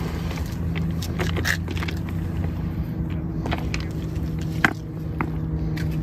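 A steady low motor hum, even in pitch, with a few light clicks scattered through it.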